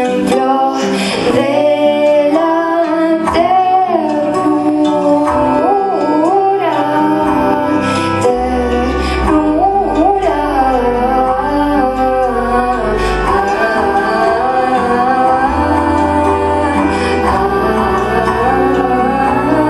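Live band music: a woman singing over keyboards, with long held low bass notes coming in partway through.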